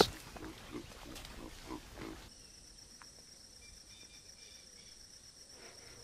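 Baboon making a few short, soft low grunts over the first two seconds. Then a faint steady high chirring of insects.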